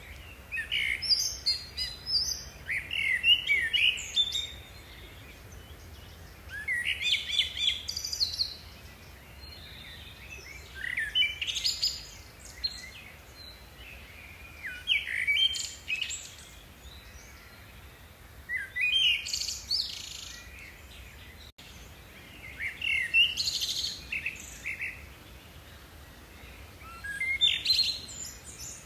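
A songbird singing short, rapid, chirping song phrases, repeated about every four seconds.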